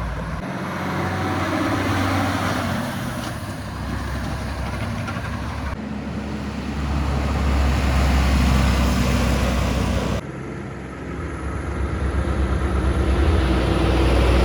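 Trucks and other traffic passing on a highway: engine hum and tyre noise rising and falling as vehicles go by, with sudden changes in the sound about six and ten seconds in.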